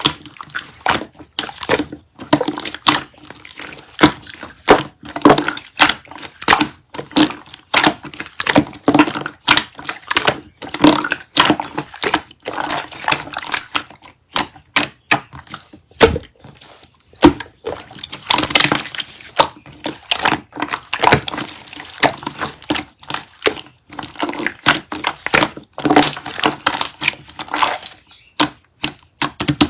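Slime being squished and poked by hand, a dense, irregular run of wet clicks and pops.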